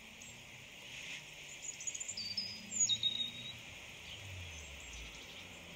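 Small birds chirping in the background, a few short high calls about two to three seconds in, over a steady hiss.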